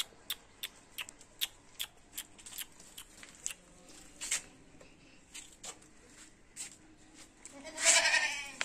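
A goat kid gives one short bleat near the end. Before it comes a string of sharp, irregular clicks, about two a second at first and sparser later.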